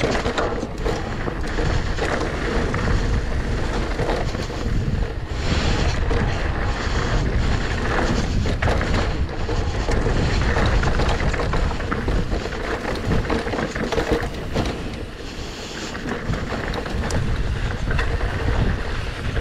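Wind buffeting the microphone and mountain-bike tyres rolling fast over a dirt trail, with many small knocks and rattles from the bike over the bumps of a downhill run.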